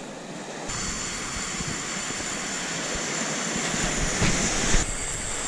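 Conventional fishing reel on a heavy surf rod giving a steady high-pitched whine as the line is worked. The whine starts abruptly about a second in and breaks off with a knock near the end, over a wash of surf and wind.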